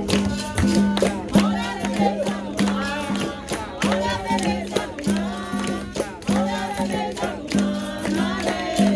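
Capoeira roda music: a group singing with shifting, wavering pitch over a steady low repeated note and frequent short percussive strikes, typical of berimbau and pandeiro.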